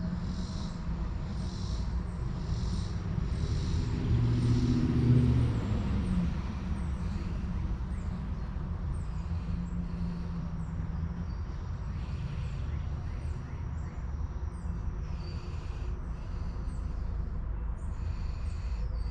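Outdoor ambience: a steady low rumble with a louder hum swelling about four to six seconds in, under insects calling in regular high pulses at first and short high chirps later.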